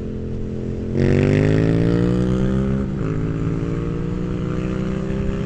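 Sportbike engine accelerating hard under the rider: it opens up about a second in with its pitch climbing, then dips sharply once about three seconds in at an upshift and pulls steadily again.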